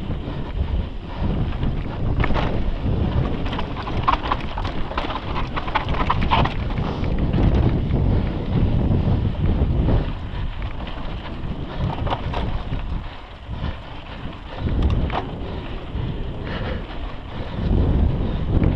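Wind buffeting the camera microphone over the rumble of mountain-bike tyres on a dry dirt singletrack descent. Sharp clicks and rattles from the bike come in clusters, thickest a few seconds in.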